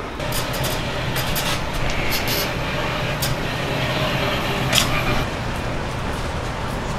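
A heavy vehicle running close by in street noise, with a steady low hum. Several sharp clicks come in the first five seconds.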